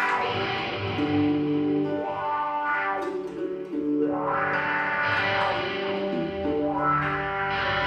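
Electric guitar played through an effects pedalboard: sustained chords with distortion and echo, a new chord struck about every two and a half seconds.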